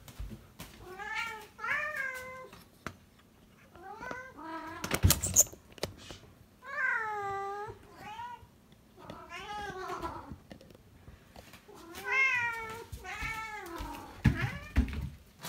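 Domestic cats meowing over and over, about a dozen calls, one of them long and drawn out in the middle, as they beg for their breakfast. A couple of sharp knocks about five seconds in.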